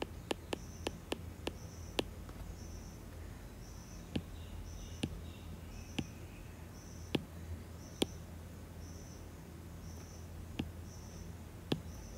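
Stylus tapping and clicking on a tablet's glass screen while writing: a dozen or so sharp, irregular taps. A faint high chirp repeats roughly once a second over a steady low hum.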